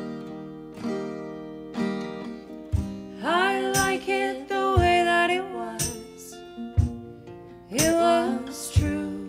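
Two acoustic guitars strummed in a slow folk song, about one strum a second. Two women's voices come in singing together about three seconds in, pause briefly, and return near the end.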